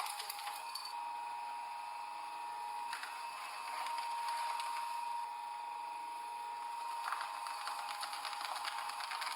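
A crushing machine's steady motor whine, with bouts of crackling and snapping as an object gives way under it, about three seconds in, at about seven seconds and again near the end.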